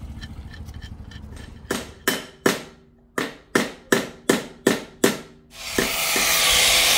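A hammer taps a metal outboard-motor propeller blade on an anvil about nine times, each blow ringing briefly, dressing the blade damaged by hitting a stone. Near the end a power tool starts and runs with a steady, loud whirr.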